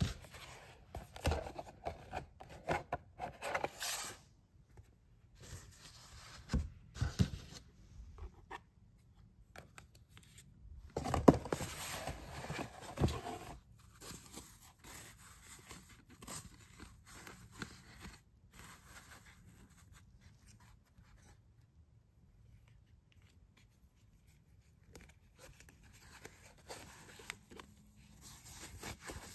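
Close-up handling of a cardboard box, a sponge and a plastic sponge holder: scattered rustles, scrapes and small clicks. The busiest and loudest stretch comes a little before the middle, and the sounds turn sparser and quieter afterwards.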